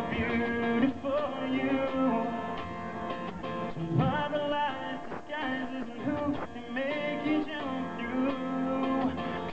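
Live acoustic guitar strummed by a man who sings a melody over it.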